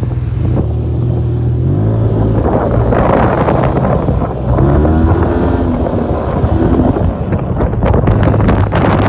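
Yamaha TMAX 530 maxi-scooter's parallel-twin engine running under way at fairly steady revs, its note shifting about two seconds in, with wind on the microphone.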